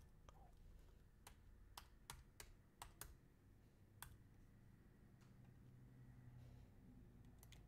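Faint keystrokes on a computer keyboard: irregular single taps, most of them in the first four seconds, then a couple more near the end.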